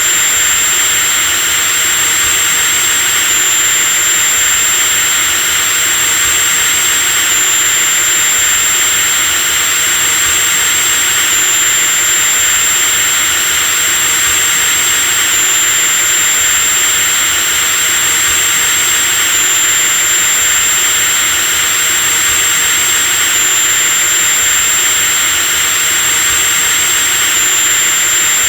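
Electric drill running continuously at steady speed: a high-pitched motor whine over a constant hiss, with a slight step in pitch about every four seconds.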